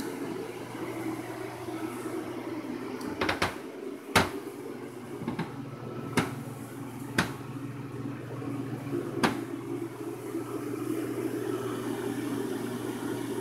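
A steady low hum with a handful of sharp clicks from about three to nine seconds in; the loudest click is just after four seconds.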